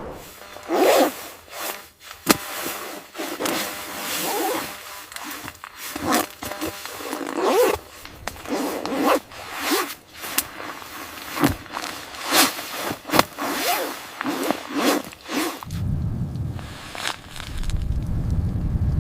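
Irregular scraping and rustling strokes with sharp clicks in between, like gear or snow being handled. About three seconds before the end they give way to a steady low rumble.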